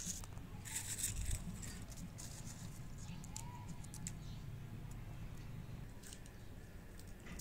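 A small knife peeling garlic cloves: dry, papery garlic skins crackle and the blade scrapes in light, irregular clicks, busiest about a second in.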